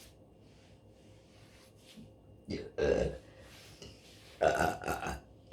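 A woman burping twice: one burp about two and a half seconds in, and a louder, longer one near the end.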